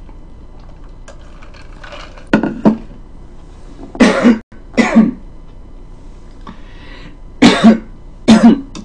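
A woman coughing hard in a fit, the coughs coming in quick pairs from about two seconds in, with a sore throat.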